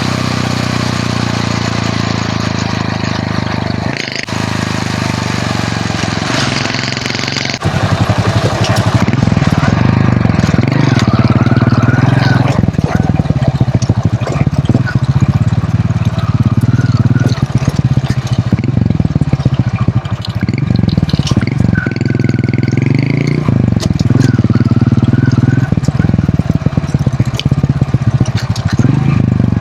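Hero Honda CD100's small single-cylinder four-stroke engine running on the move, its revs rising and falling again and again as it rides. It gets abruptly louder about a quarter of the way in.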